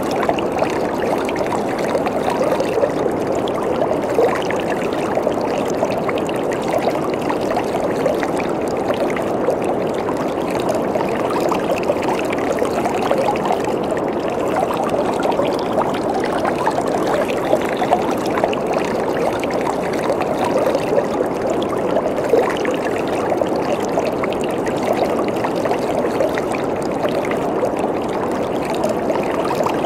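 Waterfall: water falling and splashing steadily, a constant full rush of noise.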